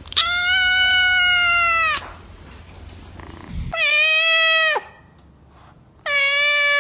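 Domestic cat meows: three long, drawn-out meows, the first about two seconds long and level in pitch before dropping at the end, the second and third shorter and falling off at their ends.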